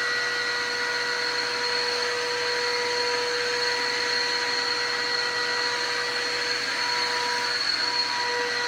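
Stanley 4-gallon wet/dry shop vacuum running steadily, its motor giving a constant whine over the rush of air.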